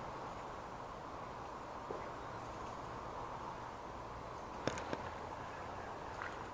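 Steady outdoor riverside hiss with two faint, short, high bird chirps, and a couple of sharp clicks from fishing tackle handling about three-quarters of the way through.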